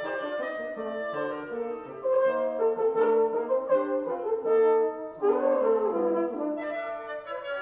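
Woodwind quintet of flute, oboe, clarinet, French horn and bassoon playing a classical chamber piece in several parts. The playing grows louder about two seconds in.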